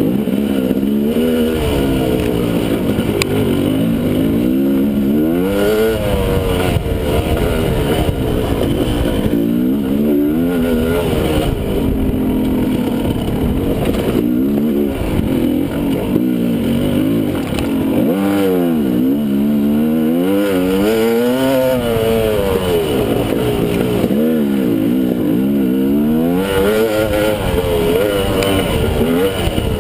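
Dirt bike engine being ridden hard off-road, its revs rising and falling again and again as the throttle opens and closes and the gears change.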